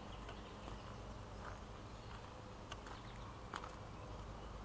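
Faint footsteps on a dirt trail strewn with dry leaves: a few soft crunches about a second apart over a low, steady background noise.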